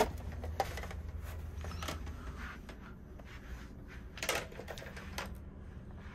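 Loose objects in a rolling ship's cabin clicking and knocking now and then, with a sharp click at the start and a cluster of knocks about four seconds in, over a steady low hum. The ship is pitching and rolling in rough seas.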